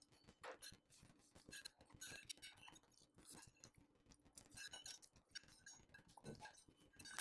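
Faint clinks and scrapes of a metal spoon and fork against a ceramic plate as the last of the rice is scraped up, with a sharper clink at the very end.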